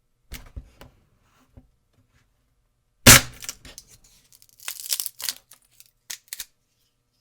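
Wooden sticks and twigs being snapped by hand: a few small cracks, then one loud sharp snap about three seconds in, followed by a run of splintering cracks and two last snaps near the end.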